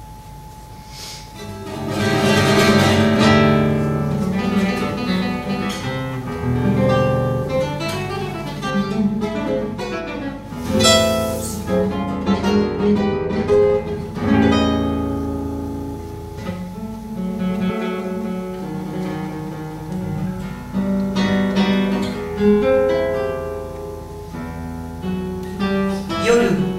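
Solo classical guitar playing a slow instrumental introduction: picked notes with strummed chords about two, eleven and fourteen seconds in.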